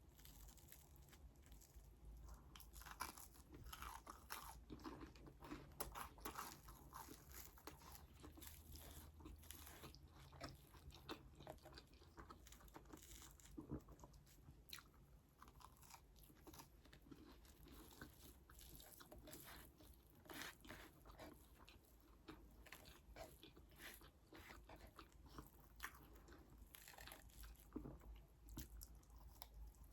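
Close-miked eating: crisp crunching bites and chewing, in quick irregular clicks throughout.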